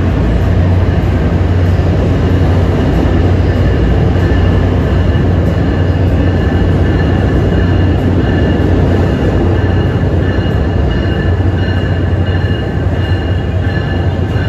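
NJ Transit ALP-46A electric locomotive arriving with its train of multilevel cars, a steady loud rumble and hum that draws close and runs past. Faint high whining tones sit over the rumble.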